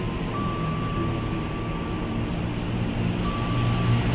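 KRL Commuter Line electric train moving slowly along a station platform: a steady rumble of wheels and motors with a low hum, and a thin high whine that comes in twice, about a third of a second in and again about three seconds in.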